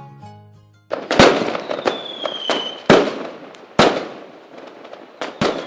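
Fireworks: about five sharp bangs, each trailing into crackle, with a high whistle that falls in pitch twice. A plucked-string tune fades out in the first second.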